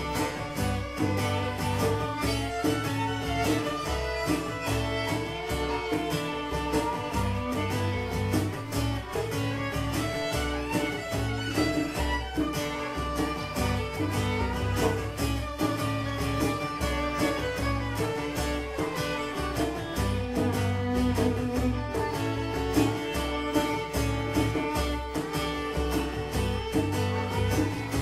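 Instrumental break played live on violin and acoustic guitar: the fiddle carries the melody over steady, rhythmic strumming.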